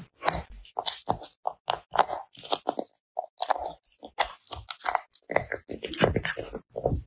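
Small poodle eating crunchy food, a quick irregular run of crisp crunches and bites as it chews.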